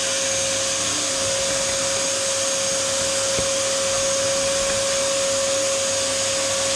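Vacuum cleaner running steadily with a constant whine, its hose nozzle drawn over a car's fabric headliner to suck up the dust.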